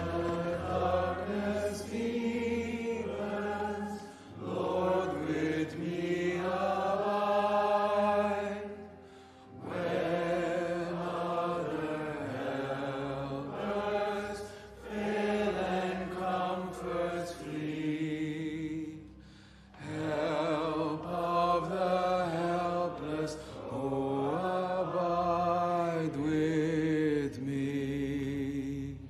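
Slow choral singing, voices holding long notes in phrases with short pauses between them.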